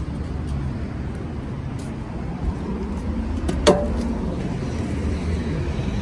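Steady low rumble of cars and road traffic in a parking lot, with one short, sharp knock a little past halfway.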